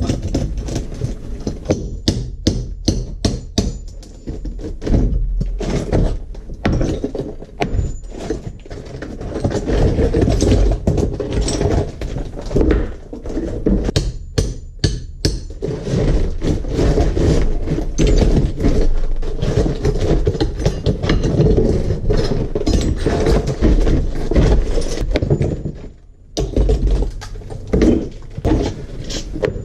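Repeated knocks and blows with breaking and crumbling tile and mortar, as an old tiled shower is torn out by hand.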